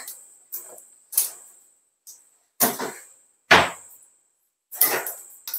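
Black mustard seeds popping in hot oil in a kadai during tempering: about seven sharp, irregular pops with short gaps between them, a sign that the oil is hot enough and the seeds are starting to splutter.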